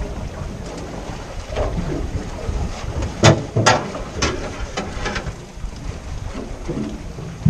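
Wind buffeting the microphone over the splash of water around a small boat drifting on open sea. There are two sharp knocks about three seconds in, then a few lighter ticks.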